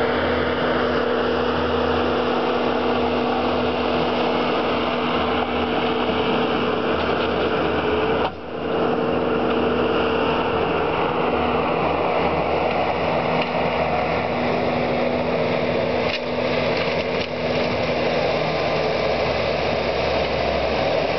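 Bobcat skid-steer loader's engine running steadily, with a high whine over the engine note that slowly drops in pitch. The sound dips briefly about eight seconds in.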